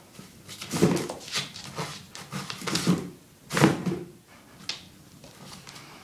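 Rhodesian Ridgeback puppy tearing and chewing at a cardboard box: four bursts of ripping and scraping cardboard over the first four seconds, then quieter rustling with a few light clicks.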